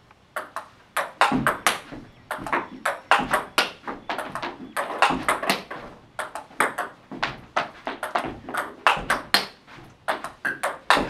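Table tennis ball in a forehand topspin rally: a steady run of sharp clicks as the ball is struck by the rackets and bounces on the table, several a second, louder from about a second in.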